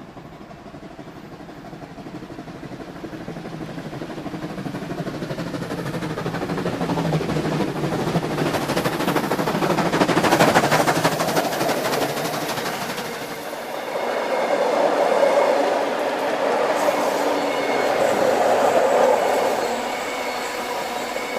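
Steam locomotive running along the track: a fast, even clatter of exhaust beats and wheels on rail that fades in and grows louder over the first ten seconds.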